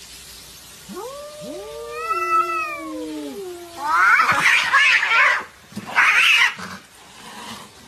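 Cats fighting: two drawn-out, wavering yowls overlapping, then two harsh screeching bursts as the fight flares up.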